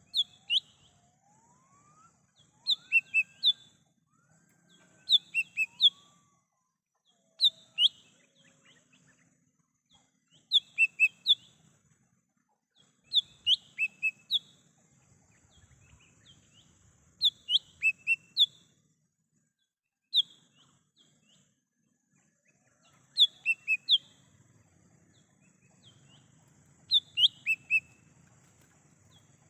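Cucak hijau mini, a small green leafbird, calling in the wild: short phrases of three or four sharp, high notes, repeated every two to four seconds. A few fainter, lower rising whistles come in the first few seconds.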